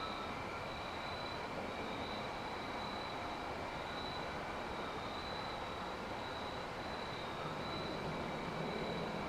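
Steady outdoor background: a continuous high, thin, even tone over a low rumbling hum, with nothing sudden in it.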